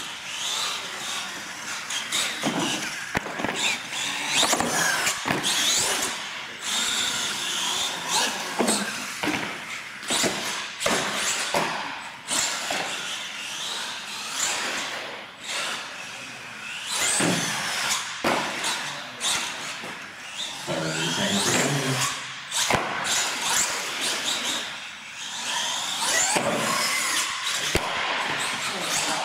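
Radio-controlled monster truck driving hard, its electric motor whining in rising and falling pitch as the throttle is worked, with tyre squeals and sharp knocks as it hits ramps and lands.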